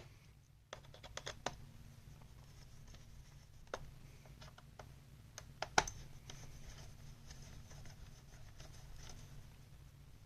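Scattered small clicks and scrapes of a screwdriver and a laptop CPU fan being handled as the fan's screws are tried into the laptop chassis, with the sharpest click a little before the middle. A steady low hum sits underneath.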